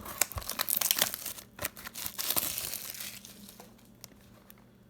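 Plastic wrapping on a box of hockey cards crinkling and tearing as it is opened, a dense crackle that dies down after about three seconds.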